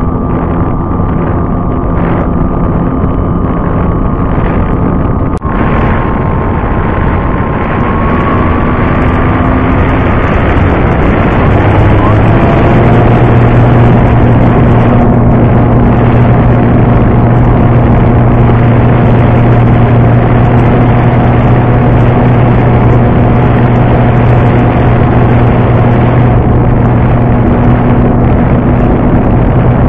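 Effe Lite 15e RC model plane's motor and propeller droning steadily, heard from a camera on board, with wind rushing past. A single sharp click comes about five seconds in. About eleven seconds in the drone shifts pitch and grows louder as the throttle is opened, then holds steady.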